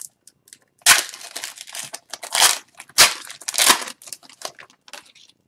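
The foil wrapper of an Upper Deck hockey card pack being torn open by hand, in several short crinkling rips. The loudest come about a second in and at about three seconds.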